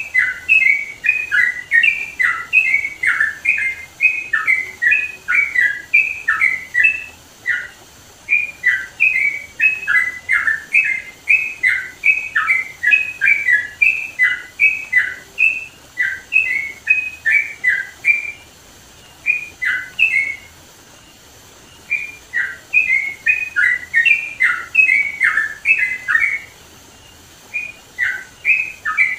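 Yellow-vented bulbul (trucukan) singing loudly in full, in-form song: a fast, continuous run of short, bubbly notes that stops briefly a few times and then starts again.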